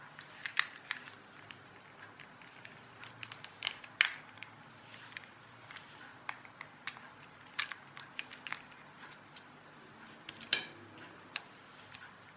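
Irregular clicks, creaks and small snaps of a clockwork toy car's plastic body shell being prised apart along its seam by hand, with light knocks of handling; the sharpest snap comes about four seconds in.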